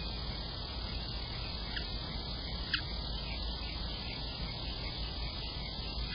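Steady hiss and low rumble from an outdoor security camera's microphone, with a few faint short chirps about two and three seconds in.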